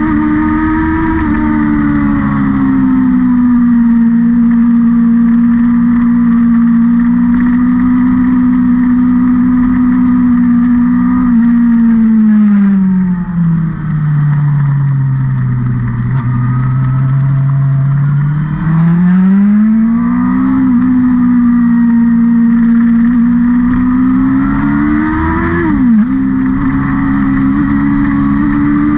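Vehicle engine lapping a race circuit, heard close and loud, mostly holding a steady pitch. About halfway through its pitch drops for several seconds as it slows, then climbs back, and near the end it rises and falls sharply, as at a gear change.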